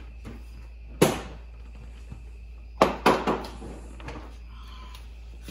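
Hard plastic knocks and clatter from the truck's lower plastic front panel as it is pulled free: one sharp knock about a second in, then a quick run of three or four knocks near the middle.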